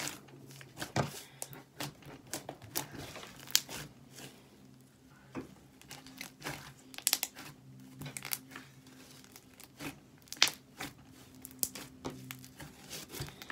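Slime being squeezed and played with by hand, giving irregular sharp clicks and crackles.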